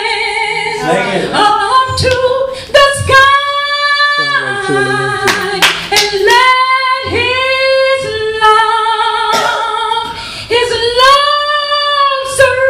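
A woman singing a gospel song solo into a microphone, unaccompanied, holding long notes with short gliding runs between them.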